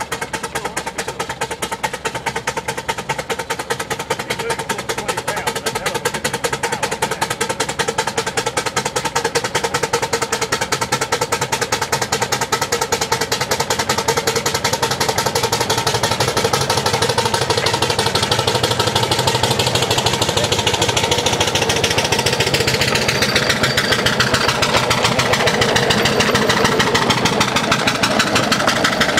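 4-inch scale Fowler live-steam traction engine chuffing in a rapid, even beat as it approaches and passes close by, the exhaust beats growing steadily louder.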